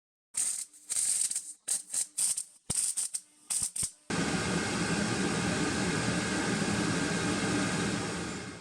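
A string of short, irregular hissing bursts, then from about four seconds in a steady rushing noise: the VEVOR WF5001 diesel air heater running.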